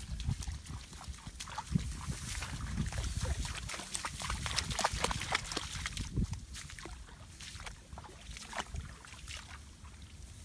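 Shallow water sloshing and splashing in many quick, irregular splashes, busier in the first half, over a low rumble.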